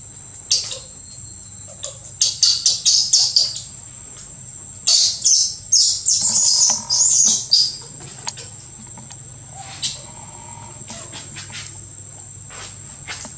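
Small birds chirping in quick bursts of short, high notes, loudest about five to eight seconds in, over a thin steady high drone from insects.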